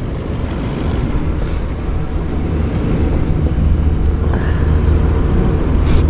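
Pickup truck engine idling with a steady low hum.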